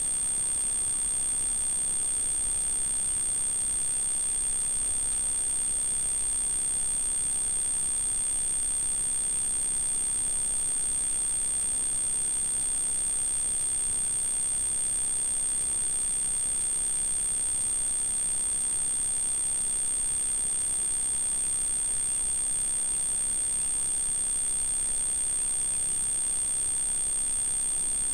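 Steady high-pitched electronic whine over an even hiss, unchanging throughout: the trail camera's own recording noise, with no bird calls standing out.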